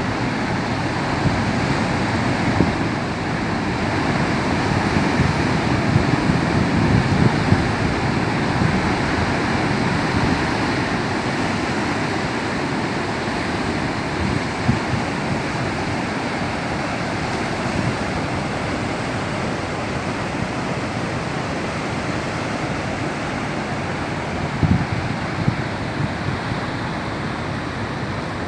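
Rough, choppy sea surf churning and breaking continuously, a dense low rushing that swells a little louder a few seconds in. Wind buffets the microphone now and then.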